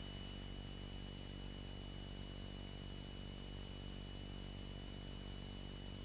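Faint, steady hum and hiss from a Beechcraft Sundowner's cockpit intercom feed in flight, with a low droning hum and a thin high-pitched tone held steady throughout.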